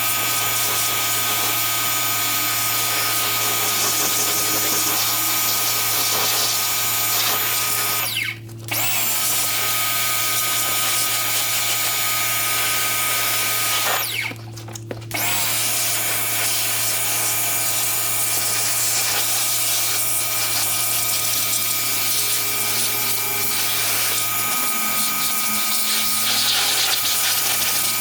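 Pressure washer running and spraying with a steady motor hum and hiss, stopping briefly twice, about eight and fourteen seconds in, as the trigger is let go.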